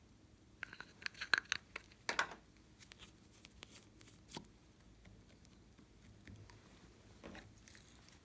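Glossy slime being handled by hand, giving sticky crackling clicks and small pops, most of them in a cluster about a second in, with fainter scattered clicks after.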